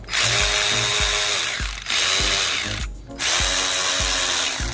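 Cordless electric ratchet spinning out water pump bolts. It runs for nearly three seconds, stops briefly, then runs again, its motor whining up and down as it starts and stops.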